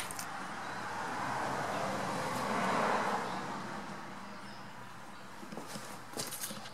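A vehicle passing by: a smooth rushing noise that swells to a peak about three seconds in and fades away, over a steady low hum. A few light clicks come near the end.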